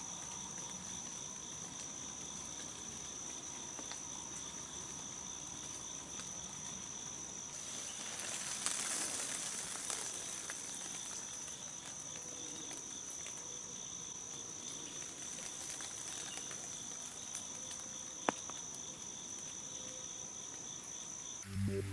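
Woodland insects calling: a steady high-pitched buzz with a pulsing trill beneath it. A rustling swell of noise rises about eight seconds in and fades after a couple of seconds, and a single sharp tick sounds near the end.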